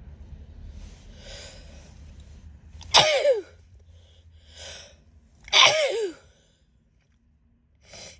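A woman sneezing twice, about two and a half seconds apart, each sneeze preceded by a sharp in-breath and ending with a voice that falls in pitch; the sneezes come in the middle of a sneezing fit set off by a lasting tickle in her nose.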